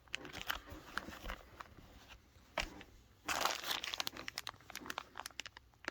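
Crinkling and rustling of the packaging around the spare laces as they are handled, with scattered small clicks and one louder rustle a little past the middle.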